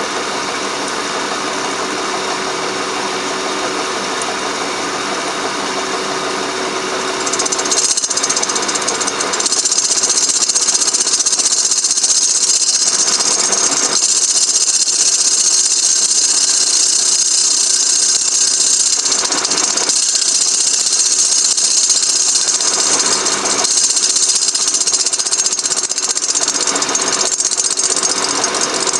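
Milling machine running with a boring head, boring out the welded-up aluminium clutch release bearing guide spigot: a steady machine hum with a constant tone, joined about seven seconds in by a louder high hiss that fades near the end.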